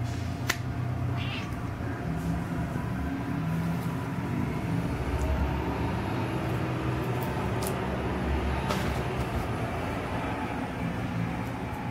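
A cat meowing, with scattered crinkles and clicks of a plastic bag and newspapers being handled and pounced on.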